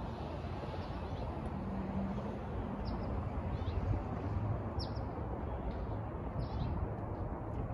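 Small birds giving short, high, downward chirps every second or so, over a steady low rumble of street traffic.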